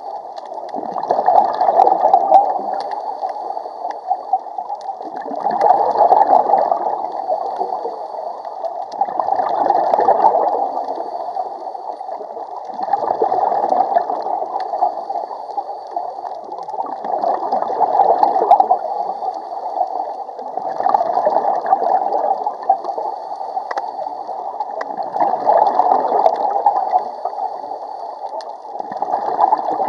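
Scuba diver breathing underwater through a regulator: gurgling exhaled bubbles swell and fade in a steady rhythm, about one breath every four seconds.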